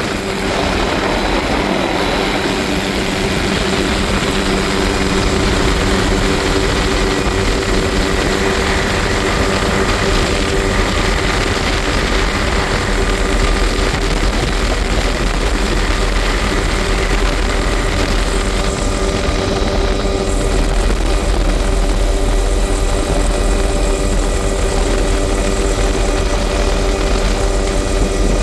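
Helicopter in flight, heard from inside the cabin with the doors off: loud, steady rotor and turbine noise with no change in pitch.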